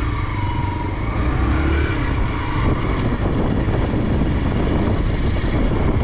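Hero Xpulse 200 single-cylinder motorcycle engine running while riding, with wind rushing over the camera microphone.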